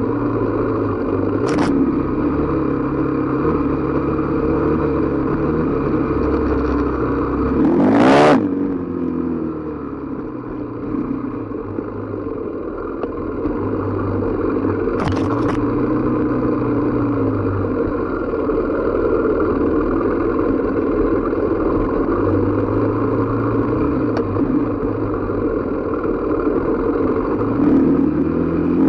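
Dirt bike engine heard from on board while riding, its pitch shifting as the throttle opens and closes over the terrain, with a sharp rev rising to a peak about eight seconds in. A few brief knocks sound through it.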